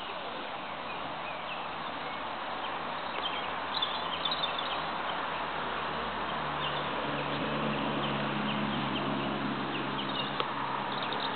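Outdoor ambience: a steady hiss with a few short high bird-like chirps about four seconds in. From about six seconds in comes the low steady hum of an engine.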